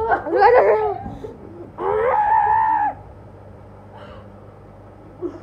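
Excited shrieks from boys, their voices swooping up and down, then one held high-pitched squeal lasting about a second.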